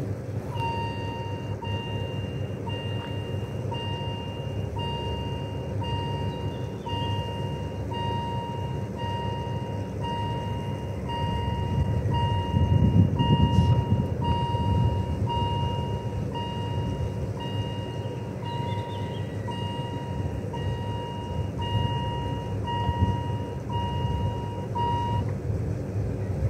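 Swiss level-crossing warning sounder ringing: a repeating electronic beep, about one and a half a second, warning of an approaching train as the barriers close. It stops about a second before the end, over a low rumble that swells around the middle.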